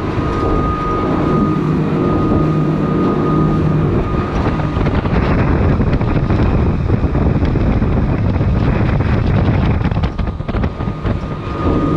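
A motorboat running at speed, its engine a steady drone under heavy wind buffeting the microphone and water rushing past the hull.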